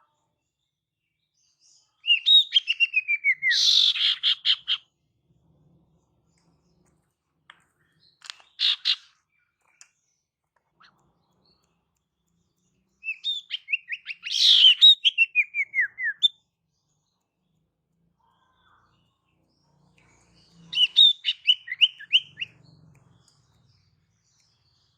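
Female sirtu (cipoh) calling, a lure call for males. Three phrases of fast, chattering notes that each slide downward in pitch, with one short burst of notes between the first two.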